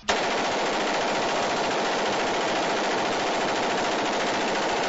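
Fully automatic machine gun firing one long unbroken burst, starting abruptly, the shots coming so fast they run together at a steady level: part of a 100-round magazine dump.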